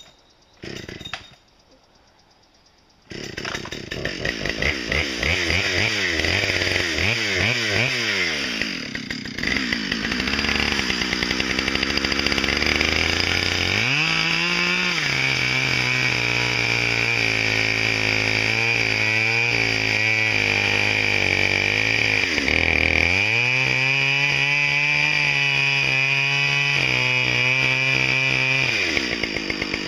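After about three seconds of near quiet, a Husqvarna two-stroke chainsaw starts up suddenly and revs with a wavering pitch. From about 14 s it settles into a steady lower note under load as it rips a slab lengthwise off a large log, with a brief dip in engine speed partway through, and it eases off near the end.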